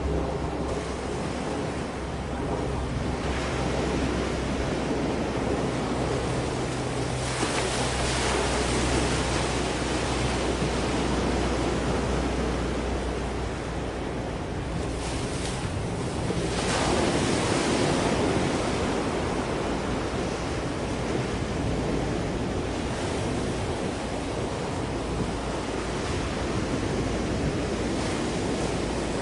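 Sea waves washing along the shore, with wind buffeting the microphone and swelling louder twice. A faint low steady hum runs underneath.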